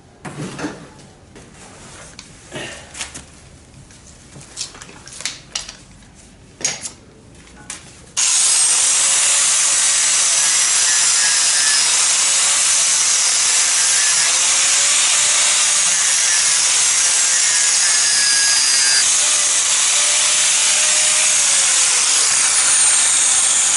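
Scattered knocks and clatter, then about eight seconds in an angle grinder starts abruptly and grinds steadily on the steel frame rail of a 1953 Chevrolet 3100 truck. The motor's pitch dips and recovers as it is pressed into the metal.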